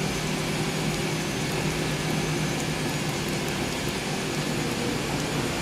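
Steady mechanical hum with an even hiss, like a running fan, holding level throughout.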